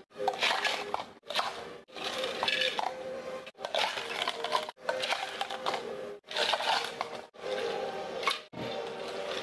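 Ice cubes scooped and dropped into clear plastic cups, clinking and rattling against the plastic, in a string of short takes that break off abruptly several times.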